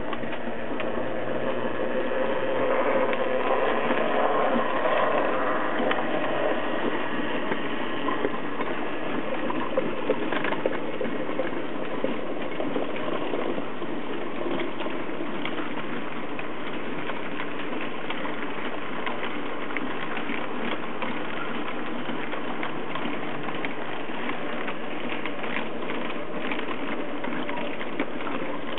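Trix Express model freight train running past on metal track, hauled by an E50 electric locomotive with two flywheel-fitted Mabuchi motors. The locomotive's motor hum swells for a few seconds near the start as it passes. After that the wagon wheels keep up a steady rattle of fine clicks over the rails.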